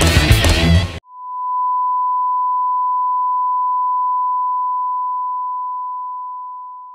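Heavy electric-guitar rock music cuts off about a second in, and a long electronic beep on one pure, steady pitch takes over, fading out slowly over the last few seconds.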